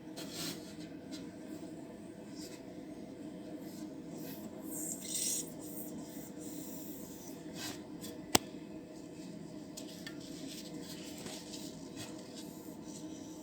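Rubbing and scraping handling noises over a steady low hum, with a louder scrape about five seconds in and a single sharp click just past eight seconds.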